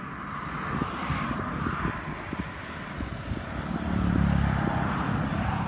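A motor engine running, growing louder to its peak about four seconds in and then easing off a little, over a steady hiss.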